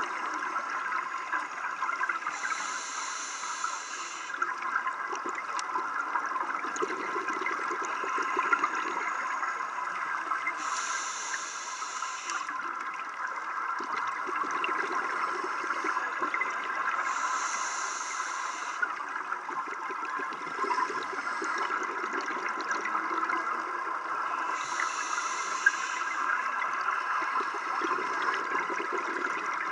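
Scuba diver breathing through a regulator underwater: a hissing inhale of about two seconds roughly every seven seconds, alternating with bubbling exhales. Under it runs a steady crackling underwater hiss.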